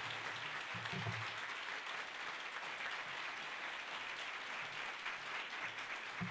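Audience applauding steadily, with a low thump about a second in and another near the end.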